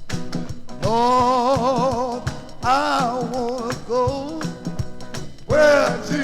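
Gospel quartet recording: a male lead voice holds long sung notes with wide vibrato over a steady beat, coming in about a second in.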